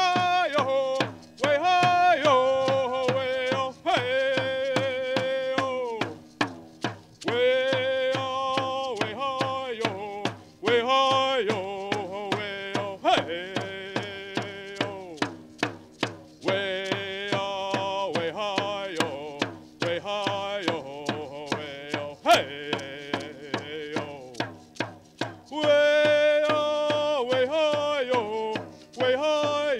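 Native American chant sung in long held vocable notes over a steady beat on a hand-held frame drum struck with a beater.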